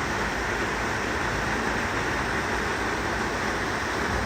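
Steady rush of a waterfall pouring into its plunge pool, an even hiss at a constant level.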